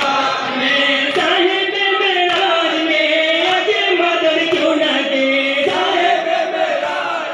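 A noha, a Shia mourning lament, sung in a slow, drawn-out melody by male voices, with the crowd of mourners chanting along.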